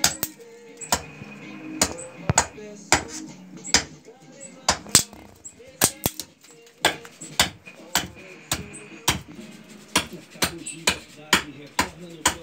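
Small hatchet chopping into a wooden spoon blank set upright on a wooden stump, hewing it to rough shape: sharp, irregular thwacks at about two a second.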